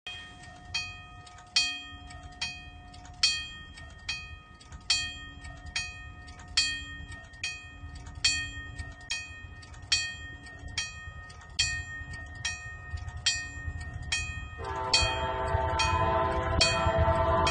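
Railroad grade-crossing bell ringing in steady strokes a little over once a second. Near the end a loud locomotive horn chord starts and holds, over the low rumble of the approaching train.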